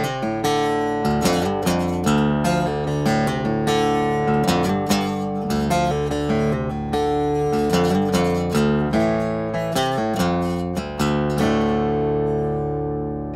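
Background music: acoustic guitar playing a quick run of plucked notes, the last chord ringing out and fading near the end.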